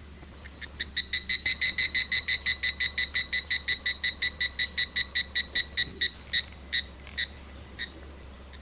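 A bird calling: a long run of short, clear notes all on one pitch, about five or six a second, building quickly at the start, then slowing and petering out with a few spaced notes near the end.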